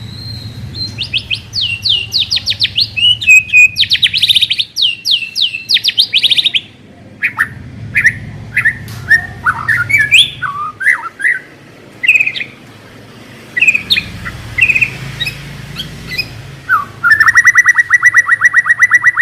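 White-rumped shama (murai batu) singing. It opens with fast runs of repeated falling notes, moves on to varied whistled phrases, and ends with a rapid, even trill.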